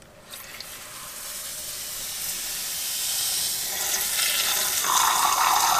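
Handheld shower head spraying water into a shower tray, starting about a third of a second in and growing steadily louder. The water is being run to leak-test the newly fitted shower drain.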